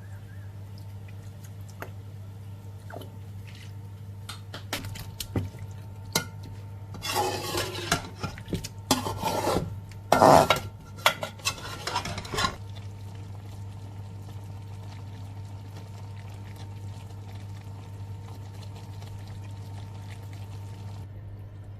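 A utensil scraping and clinking against a bowl or pan while food is stirred or mixed. It comes in a busy run through the middle, after a few scattered taps. A steady low hum runs underneath.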